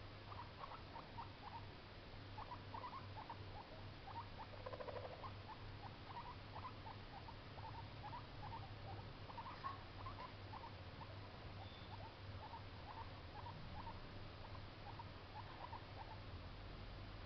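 Baby guinea pig squeaking in a steady string of short, soft squeaks, about three a second. A brief lower, buzzier call comes about five seconds in, and the squeaking stops shortly before the end.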